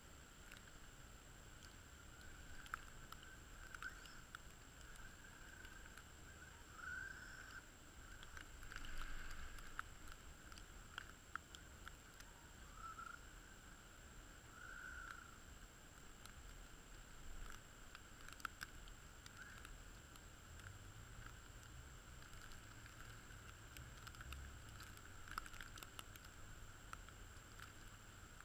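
Near silence: a faint steady background hiss with scattered faint ticks.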